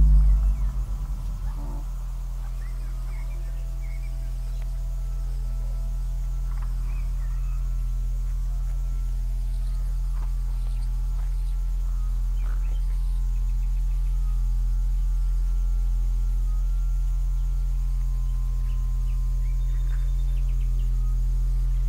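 Ambient sound-art composition: a low steady drone that slowly swells. A deep thump at the start throbs away over about a second and a half, and faint high chirps and ticks are scattered above the drone.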